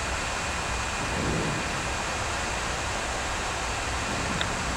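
Steady rushing noise on the flight deck of an Airbus A340-300 in flight on approach: airflow around the nose and the cockpit ventilation, with a faint steady high tone over it.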